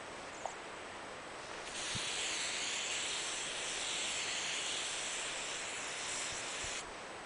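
Aerosol hairspray sprayed onto the hair in one continuous hiss of about five seconds, starting about two seconds in and cutting off near the end.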